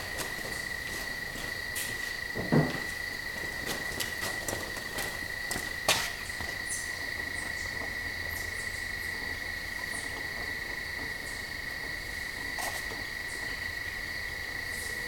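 Crickets trilling: a steady, unbroken high-pitched tone. Two soft knocks of handling, about three seconds apart, stand out over it, with a few fainter clicks later.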